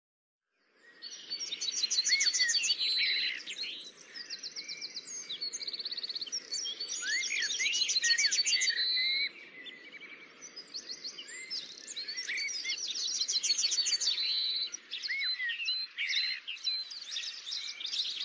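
Several birds chirping and singing together: rapid high trills and short rising whistles, coming in about a second in after a brief silence.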